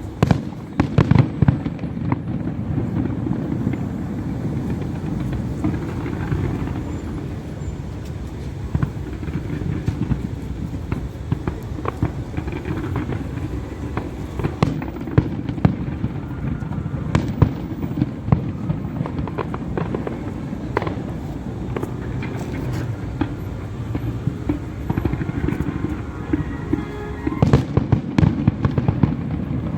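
Fireworks display: a continuous run of bangs and crackling. The bangs come thickest about a second in, in the middle stretch and again near the end.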